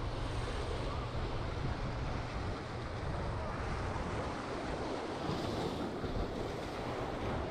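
Small waves surging and washing over jetty rocks, with a brighter splash about five seconds in. Wind buffets the microphone, strongest over the first couple of seconds.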